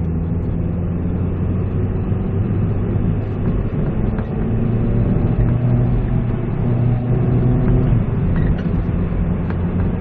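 Peugeot 207cc engine pulling hard up a hill with the air conditioning running, heard from inside the cabin as a steady engine hum over tyre and road noise.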